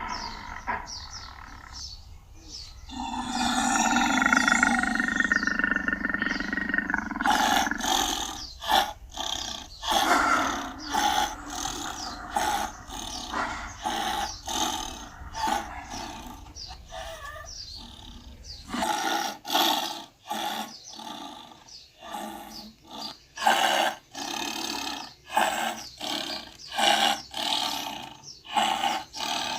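Tiger vocalising: one long roar starting about three seconds in and lasting some four seconds, then a run of short, repeated grunting calls, about one or two a second, for the rest of the time.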